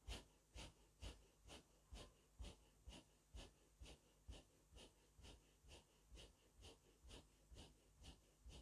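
Faint, rhythmic forceful breathing through the nose, about two breath strokes a second, steady throughout: the paced breathing of zikr-e-khafi, each breath striking 'Allahu'.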